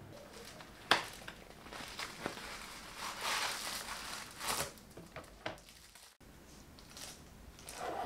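Cardboard box of puff pastry sheets being handled and opened, with its plastic wrapping rustling. There is a sharp click about a second in and scattered bursts of rustling after it.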